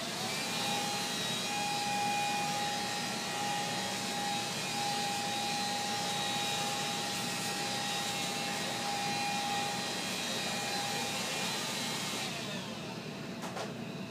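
Electric vacuum cleaner switched on and running steadily with a high motor whine, then switched off about twelve seconds in, its motor winding down. A couple of clicks follow.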